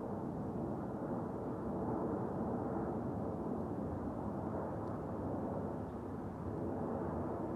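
Boeing 787-8 Dreamliner flying over on its landing approach: a steady jet rumble with no sharp whine on top.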